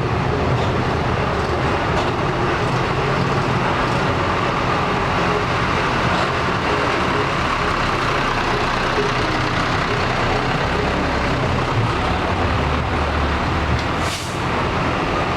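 Large bus's diesel engine running steadily as it pulls out, with a short hiss about fourteen seconds in.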